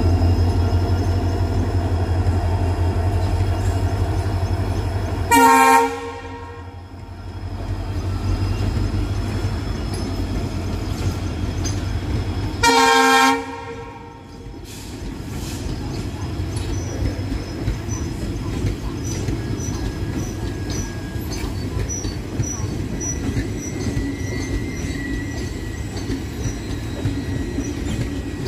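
WDP4D diesel-electric locomotive's two-stroke V16 engine running as it pulls away, then its horn sounding twice, two short chords about seven seconds apart. After that the passenger coaches roll past with steady wheel-on-rail noise and clickety-clack.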